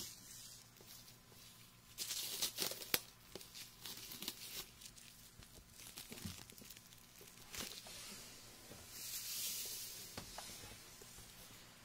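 Fingers rubbing and scratching over the ears of a binaural dummy-head microphone, close rustling and crackling in bursts, loudest about two seconds in, with a smoother rubbing hiss near the end.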